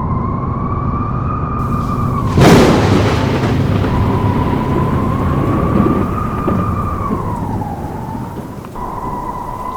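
Blizzard wind howling, a steady whistle that wavers slightly in pitch over a low rumble of gusting noise. A loud crash-like gust comes about two and a half seconds in.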